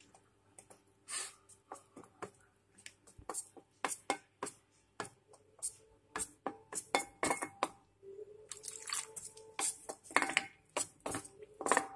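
Spoon stirring a thin maida flour-and-water batter in a stainless steel bowl: irregular clicks and taps of the spoon against the bowl, several a second, with the wet stir of the liquid batter.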